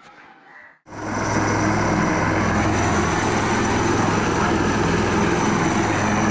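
A loud, steady engine noise cuts in abruptly about a second in and runs on evenly, with a low hum and a thin high whine.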